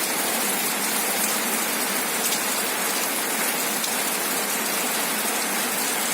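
Hail storm with heavy rain pouring down: a dense, steady hiss of water with faint sharp ticks of stones striking.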